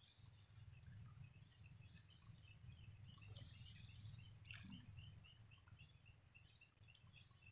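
Near silence: faint riverside ambience with a low steady rumble and a run of small, high chirps repeating about four times a second.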